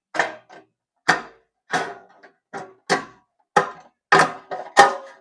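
Metal parts of a sausage stuffer's gear housing knocking and clinking against the frame as the housing is fitted back on: a run of about eight sharp knocks, each ringing briefly.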